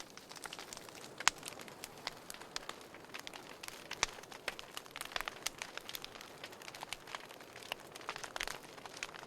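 Wood fire crackling in a fireplace: irregular sharp snaps and pops over a soft hiss, with louder pops about a second in and about four seconds in.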